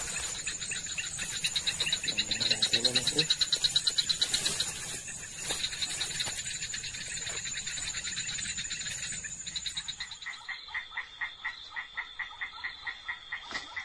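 Night chorus of insects trilling steadily at a high pitch, joined about ten seconds in by a frog calling in a quick run of repeated croaks, a few a second.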